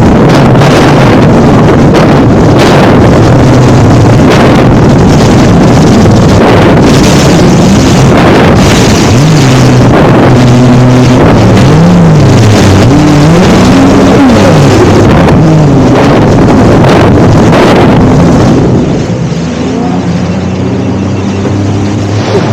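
Jet ski engine running at speed over the water, its pitch rising and falling repeatedly with the throttle and a dense rushing noise throughout. Near the end it eases off to a lower, steadier note.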